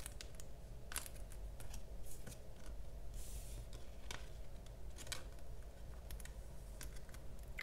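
Photocards and clear plastic card sleeves being handled on a wooden tabletop: scattered light clicks and taps, with a brief plastic rustle about three seconds in.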